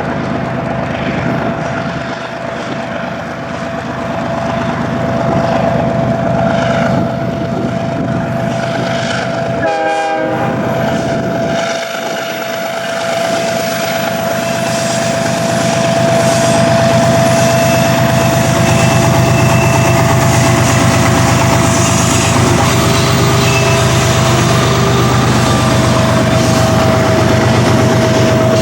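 BNSF freight train running by: locomotive engines and steel wheels on the rails, with a steady high tone held throughout. It grows louder about halfway through.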